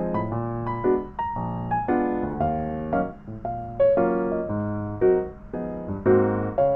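Background music: a light piano or electric-piano tune with a steady beat and a bass line.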